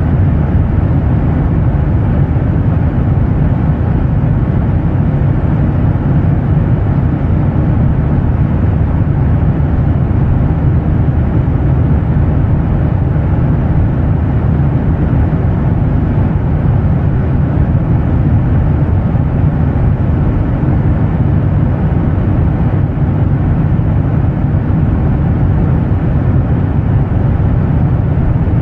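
Steady, even low drone of airliner jet engine noise, a deep rumble with no changes in pitch or level.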